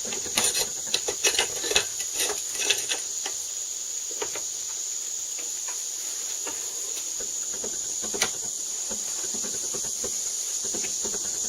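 Chicago Electric portable band saw running with its blade cutting through a piece of scrap metal: a steady high hiss, with a scatter of clicks in the first few seconds and one more about eight seconds in.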